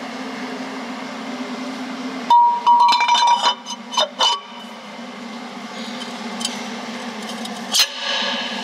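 Metal clinking and ringing as a steel cylinder liner is handled and seated in a truck engine block. A quick run of sharp clinks with a ringing tone lasts about two seconds, starting a couple of seconds in, and one sharp knock comes near the end, over a steady low workshop hum.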